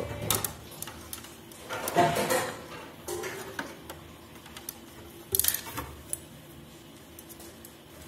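Light clicks and scrapes of a coil of thin copper tube being handled and worked into place beside a fridge compressor, with two louder bursts of rubbing about two seconds in and again past five seconds.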